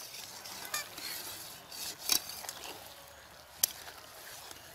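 A metal spatula stirring squash pieces in simmering curry in a large pan, clinking sharply against the pan three times, over a steady sizzling hiss.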